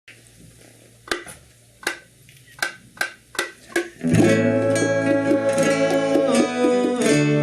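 About seven sharp taps spaced under half a second apart, then acoustic guitar strumming starts about four seconds in and carries on as a full band song.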